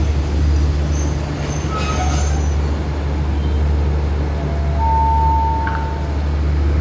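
Passenger train (rapid train 167) with a steady low rumble, with a few brief high squeals in the first couple of seconds and a short, steady high tone about five seconds in.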